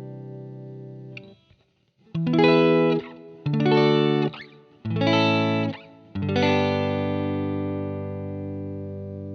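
Music on a guitar with effects and light distortion. A held chord dies away about a second in; after a short silence come three short chords about a second and a half apart, then a fourth chord is struck and left ringing, slowly fading.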